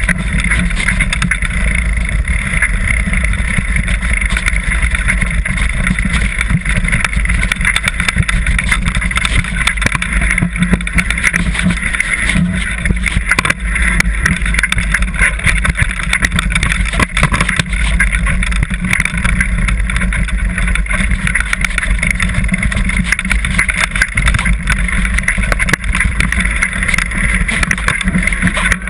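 Continuous rumbling wind buffeting on a bike-mounted camera's microphone, with a constant clatter of small knocks and rattles as the mountain bike jolts down a rough, rocky single-track trail.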